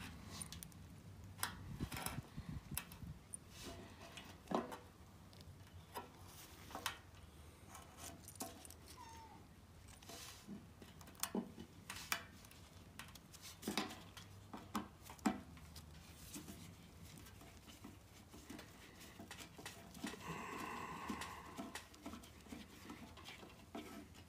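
Scattered light clicks and taps of small parts being handled: wires and terminal screws being worked into a plastic 110 V replacement plug, its body and metal prongs knocking now and then on the bench.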